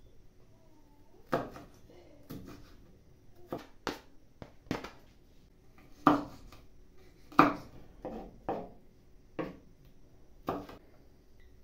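Kitchen knife chopping bell pepper on a wooden cutting board: about a dozen separate knocks of the blade on the board, at an uneven pace, the loudest two near the middle.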